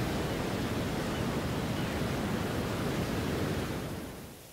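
Steady sea-and-wind ambience, a continuous rushing noise of surf and wind around a rocky island, fading away near the end.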